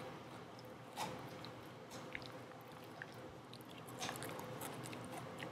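A dog gnawing a rawhide strip: sharp crunches about a second in and again at about four seconds, with small clicks of chewing between.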